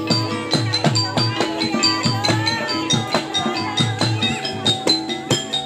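Jaran kepang accompaniment music in gamelan style. Low drum strokes come about twice a second under sharp, even percussion hits, held ringing tones and a wavering melody line.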